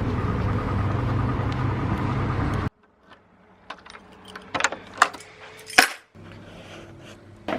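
A steady engine-like rumble that cuts off sharply, then a few sharp clicks and clinks of small hard objects being handled.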